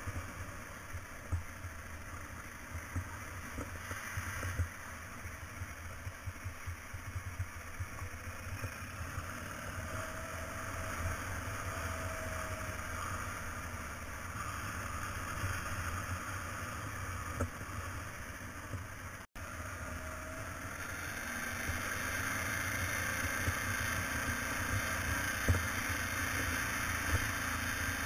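Motorcycle running along a gravel road: a steady engine and road rumble under wind buffeting on the microphone. The sound cuts out for an instant just after halfway and is louder for the last third.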